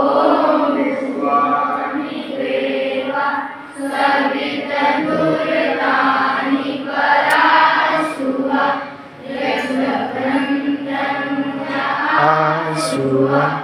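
A class of schoolchildren, boys and girls, chanting a Sanskrit prayer in unison, sung in drawn-out phrases with brief pauses between them.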